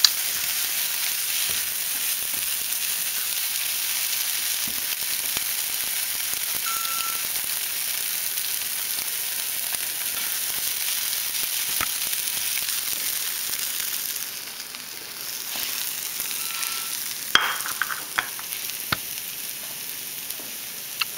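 Scrambled eggs sizzling in a nonstick frying pan: a steady high hiss that eases off about two-thirds of the way through. It is followed by a few sharp clicks and knocks near the end.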